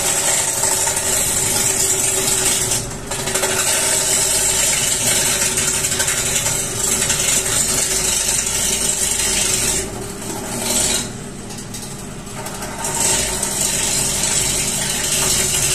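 Wood lathe running with a long timber spinning on it and a hand-held turning tool cutting into the wood, giving a steady hiss of shavings over the hum of the machine. The cutting breaks off briefly about three seconds in and again for a few seconds past the middle.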